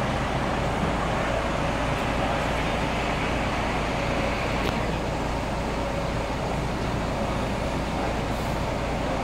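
Steady rumble of long-distance diesel coaches idling at their bays, with no single event standing out.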